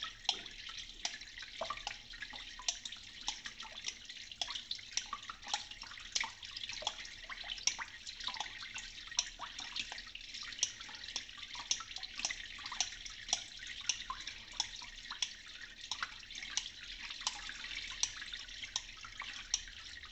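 Tap water running steadily over a small Thuringian yellow-green hone while a straight razor makes its final finishing passes on it, some edge-trailing like stropping, with repeated short sharp clicks as the blade moves and turns on the wet stone.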